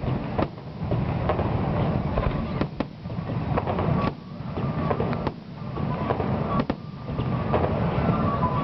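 Fireworks going off: a dense run of bangs and crackles over a low rumble, with music coming back in near the end.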